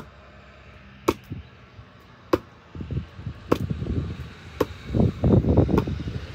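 Ceramic knife blade striking hard wood: five sharp knocks about a second apart, with crackling and rustling between the strikes from about three seconds in.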